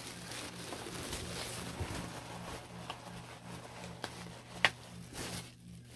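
Wrapping rustling as it is pulled off a boxed diecast model car, with a few light ticks and one sharp click about four and a half seconds in.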